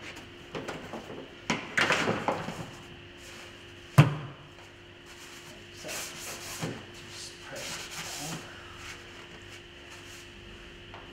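A rag rubbing and wiping over the engine's plastic covers and parts under the hood, with scattered clicks and rustling. One sharp knock about four seconds in is the loudest sound.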